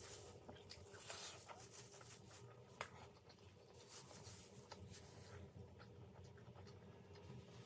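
Faint eating sounds of a person chewing veg momos: soft mouth noises and scattered small clicks, with one sharper click a little under three seconds in.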